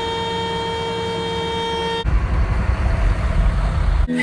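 A steady, unwavering horn tone for about two seconds, then an abrupt cut to a loud, uneven low rumbling noise.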